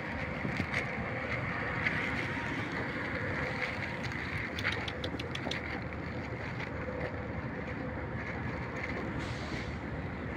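Wind rushing over the microphone, a steady noise, with a brief run of crackles about halfway through.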